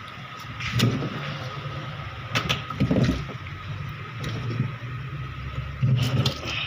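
Ice-making machine running with a steady hum and a constant tone. Irregular knocks and clatter sound about a second in, around the middle, and near the end.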